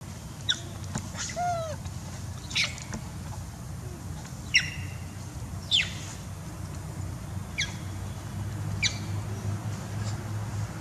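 Short, high-pitched chirping calls, about eight of them spaced a second or so apart, each a quick downward sweep in pitch, over a steady low hum.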